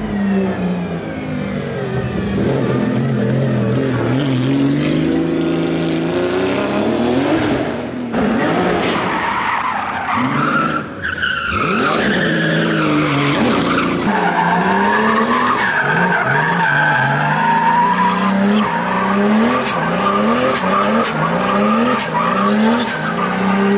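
Rocket Bunny Nissan S14 drift car's engine revving hard and falling back again and again while its rear tyres squeal and skid through a drift. In the second half the revs climb in quick repeated surges, about one a second.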